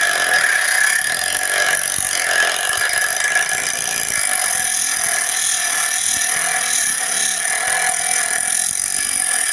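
Homemade angle grinder driven by a 12-volt 775 DC motor, its cutting disc grinding into the steel blade of a pair of scissors: a steady high-pitched whine over a continuous grinding hiss.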